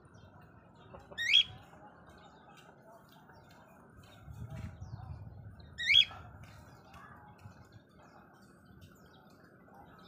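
Cockatiel giving two short, loud, upward-sweeping calls, about a second in and again about five seconds later.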